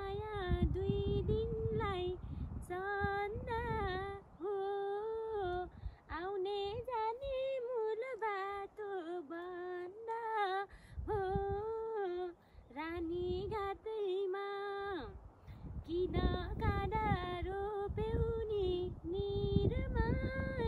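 A woman singing a Nepali folk melody unaccompanied, long wavering held notes in phrases with short breaks between them.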